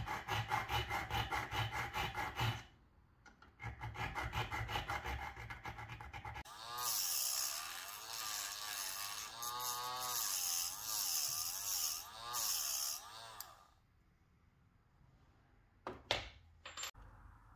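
A hand file rasping on a steel cam-lock latch plate in quick, even strokes, in two runs with a short pause between. Then a Dremel rotary tool with a diamond cutting wheel grinds into the latch for about seven seconds, its high whine wavering as the wheel bites. A couple of light knocks come near the end.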